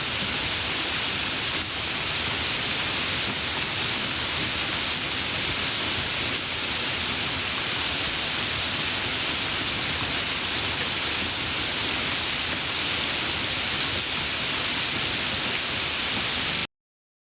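Gentle rain falling steadily, an even hiss with no distinct drops standing out. It cuts off abruptly to silence near the end.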